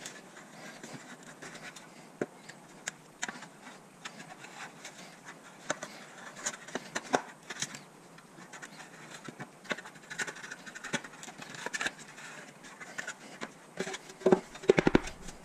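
Razor scraper scratching old gasket material off an aluminium cover in short, irregular strokes, with strips of gasket being pulled away. A few louder knocks near the end as the metal cover is handled.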